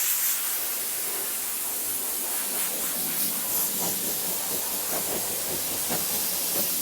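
Compressed-air blow gun hissing steadily as it blows dust off a carbon-fibre roof panel.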